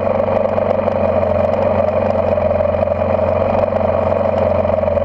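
Dirt bike engine idling steadily, close up.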